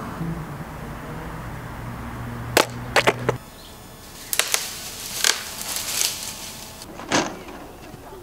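Outdoor ambience with a steady low hum, broken by a few sharp knocks and clatters: three close together near three seconds in, more scattered later, one about seven seconds in.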